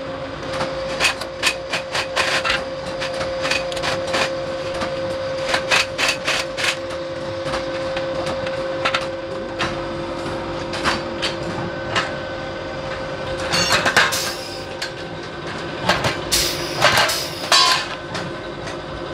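Pneumatic pop-rivet gun setting aluminium rivets into a ladder's rails and rungs: a run of sharp metallic snaps and clicks, with two longer hissing bursts in the second half. A steady hum runs underneath.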